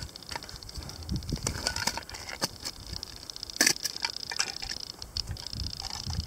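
Steel crampon points scraping and clicking on rock during a scramble, with metal climbing gear jangling and irregular low bumps. There is one sharper clank a little past halfway.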